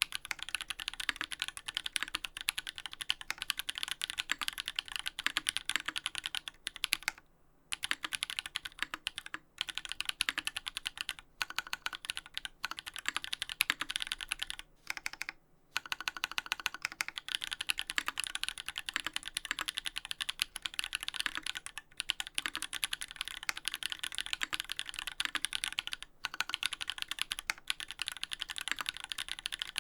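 Fast typing on a Duck Orion V3 custom mechanical keyboard fitted with Holy Panda tactile switches lubed with Tribosys 3204, on an FR4 plate with GMK keycaps. It is a dense, steady run of keystroke clacks, broken by two short pauses, about seven and a half and fifteen seconds in.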